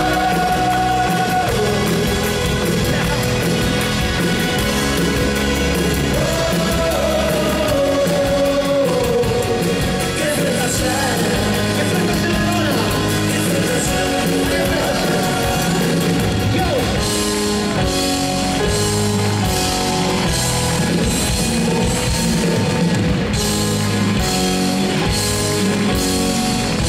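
Live rock band playing through a concert PA: electric guitars, bass and drums, with some singing. The drums hit harder and more clearly in the second half.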